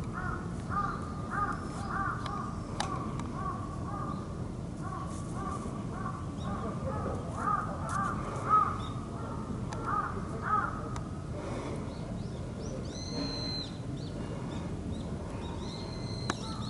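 Crows cawing in a long, even run of short calls, about two a second, for the first ten seconds or so. A few higher bird notes follow near the end, over steady low background noise.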